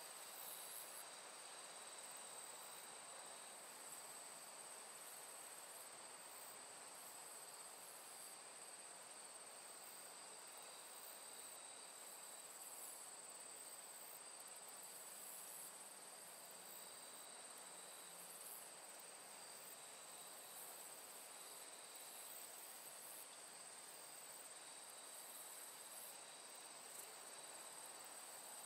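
Near silence: a faint steady hiss with a thin, high-pitched whine.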